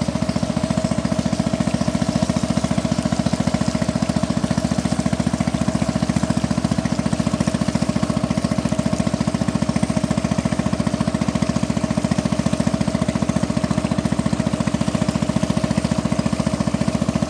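Boat engine running steadily, a fast, even putter that holds the same pace throughout.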